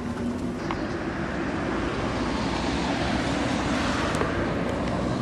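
Road traffic noise: a steady rushing of passing vehicles that swells slightly about two seconds in.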